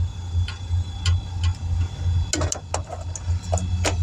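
A motor running with a steady low rumble, under irregular sharp clicks: a few spaced ones early, then a quick cluster in the second half.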